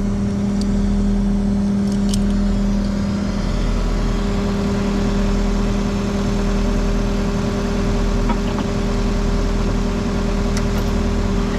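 Skid steer engine running steadily at a constant speed, with a few light clicks over it.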